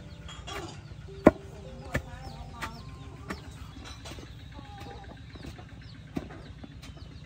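Chickens clucking, with sharp thuds of a wooden pestle pounding chopped banana stem in a stone mortar, about one every two-thirds of a second through the first half, the loudest two of them a little over a second in.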